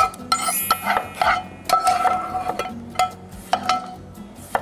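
Chinese cleaver chopping through beetroot onto a wooden cutting board in quick, uneven strokes, many with a short metallic ring, as the beet is cut into thin strips.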